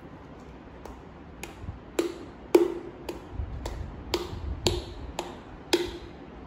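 Thin plastic glue bottle clicking and knocking about twice a second as it is squeezed and tapped upside down in a plastic tub to get the last of the clear glue out.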